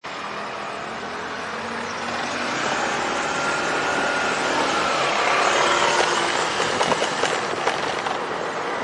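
Busy city street traffic noise heard from a bicycle. It swells over the first five or six seconds as a vehicle passes, and a few sharp clicks and rattles come near the end.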